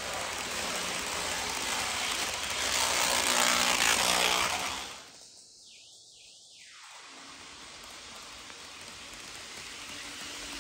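Model trains running on sectional track: wheels rolling on the rails with a faint motor whir, swelling as the train passes close, then dropping suddenly about halfway through to a quieter, more distant running sound.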